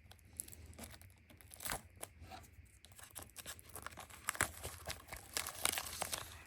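Plastic shrink-wrap being torn and peeled off a Blu-ray case: scattered crinkling crackles that grow denser and louder toward the end.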